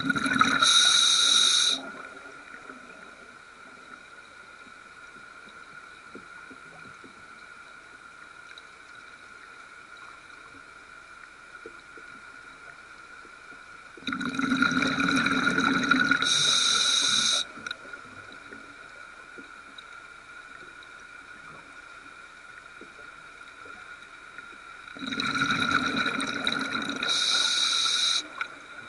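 Scuba diver's exhaled bubbles rushing out of the regulator underwater, three breaths: one ending just after the start, one about halfway through and one near the end, each lasting two to four seconds. A faint steady whine sits underneath between the breaths.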